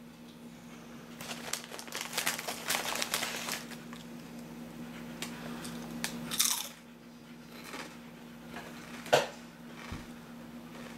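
Close-up sandwich eating: crunchy, crackly biting and chewing for a few seconds, another bite a little past six seconds, and a sharp click near nine seconds.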